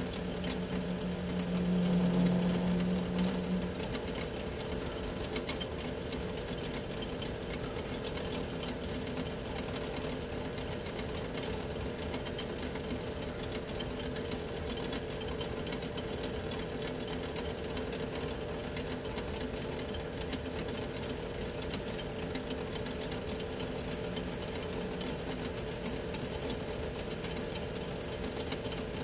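Metal lathe running steadily while a small boring bar cuts the bolt-nose counterbore in the face of a threaded rifle barrel tenon. A louder humming tone comes in over the first few seconds, then the machine sound goes on steadily.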